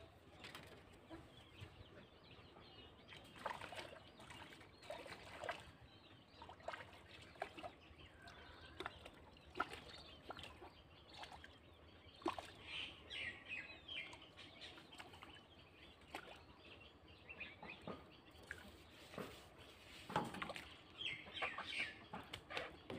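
Quiet outdoor ambience of birds calling, with short chirping calls about twelve seconds in and again near the end, and scattered faint clicks and taps.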